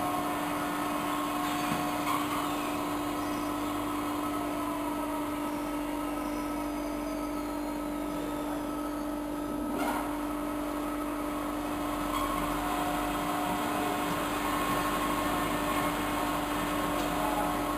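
Evashred EV110E Panther electric shredder running with a steady machine hum as it shreds a foam rubber bale fed by its force-feed hopper. A brief knock about ten seconds in.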